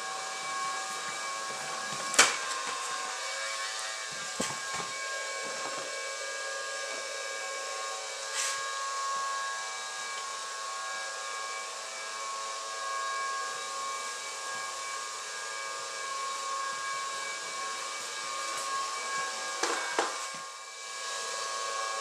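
Small hairdryer motor and fan, run off a 9-volt battery, spinning in a cardboard-tube duct: a steady whirring whine with hiss. A few sharp knocks come over it, the loudest about two seconds in and a cluster near the end.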